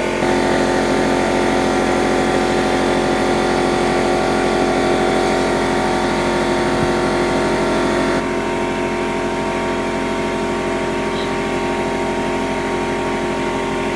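Air compressor motor running steadily with a constant hum, dropping slightly in level about eight seconds in.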